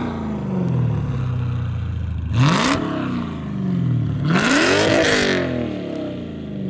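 2014 Dodge Challenger SRT8 392's 6.4-litre HEMI V8 idling and free-revving twice: a short blip about two and a half seconds in, then a longer rev about a second and a half later, each dropping back to idle.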